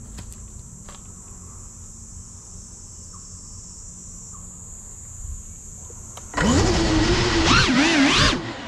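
FPV quadcopter's motors spinning up about six seconds in: a loud whine that rises and falls in pitch with the throttle as it lifts off. Before that, only a quiet steady high hiss of insects.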